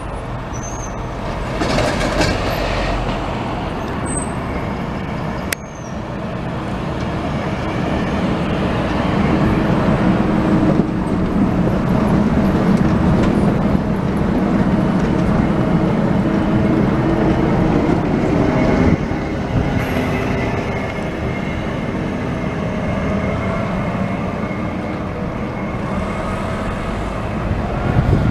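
Translohr rubber-tyred tram passing close by: a steady rumble with a hum running through it, building to its loudest about halfway through. A single sharp click comes about five seconds in.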